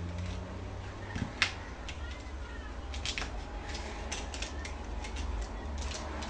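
Scattered small clicks and taps of hands handling computer parts, with one sharp click about one and a half seconds in and a run of lighter ones later, over a steady low hum.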